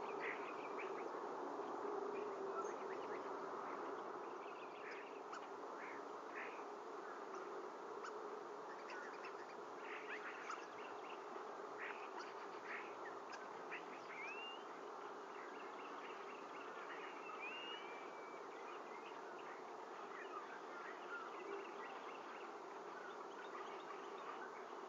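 A steady, even buzzing hum, a little louder for the first few seconds, with scattered faint short chirps and a couple of brief rising whistles over it.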